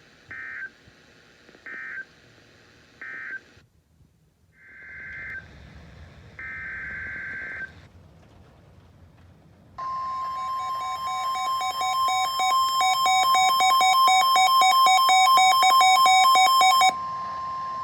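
NOAA Weather Radio alert signalling. First three short buzzy data bursts, the EAS end-of-message code. After a pause come two longer data bursts, the header of the next alert. About ten seconds in, a steady 1050 Hz warning alarm tone starts, with a weather alert radio's alarm beeping rapidly over it, the loudest part; the beeping stops near the end while the steady tone carries on.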